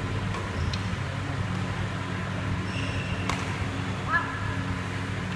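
Badminton hall between rallies: a steady low hum, with a couple of brief shoe squeaks on the court floor and one sharp tap a little past three seconds in.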